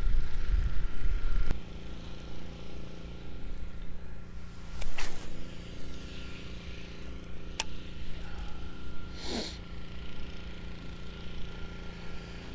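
Wind buffeting the microphone, a strong low rumble for the first second and a half and then a weaker steady rush. A few sharp clicks and a brief louder noise about five seconds in are heard over it.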